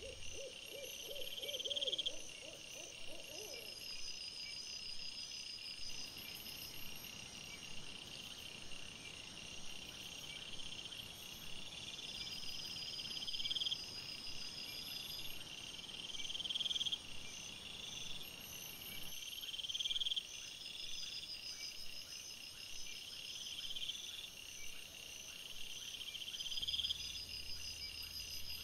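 Night insect chorus: a high, cricket-like trill that swells and breaks off every two to three seconds, with a short run of low, rapid pulses in the first few seconds.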